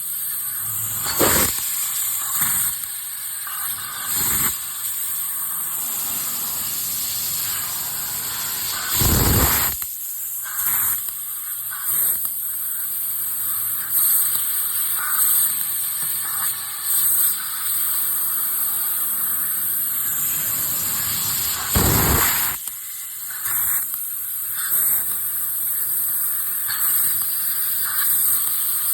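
3000 W fibre laser cutting 1.5 mm 304 stainless steel sheet with compressed-air assist gas: a steady hiss of air jetting from the cutting head. Several short, louder rushes come through, the longest about nine seconds in and again about twenty-two seconds in.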